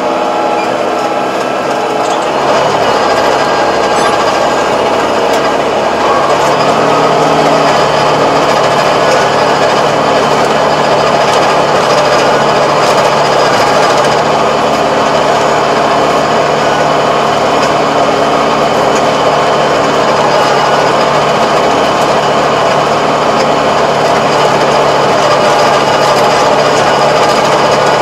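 Tractor diesel engine running under load while driving a Kobashi rotary tiller that churns through the soil. It gets louder about two and six seconds in as the work picks up, then runs steady.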